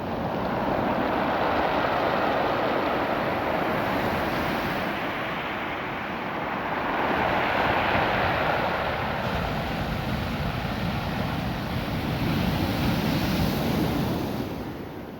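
Ocean surf washing over a beach of small rounded stones, a steady rushing that swells three times as waves surge in and draw back, the stones adding to the sound of the wash.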